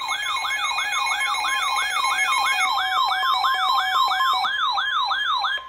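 Electronic siren-style alert tone: a warbling sweep that rises and falls about two and a half times a second over steady tones, signalling an emergency weather warning that is about to be read.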